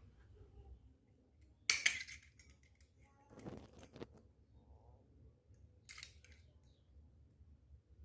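Miniature steel toy kitchenware being handled and clinking: a sharp metallic clatter about two seconds in, a duller knock and handling sound a little later, and another short clink about six seconds in.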